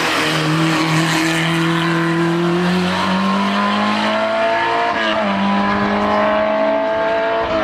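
Hill-climb race car's engine accelerating hard up through the gears, its pitch rising steadily with short drops at upshifts about three and five seconds in and again near the end.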